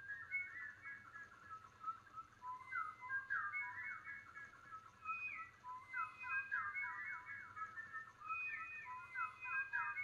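Whistled bird-call imitations from a woman's mouth, many short chirps and quick rising and falling warbles layered over one another as a live vocal loop, like a flock of birds.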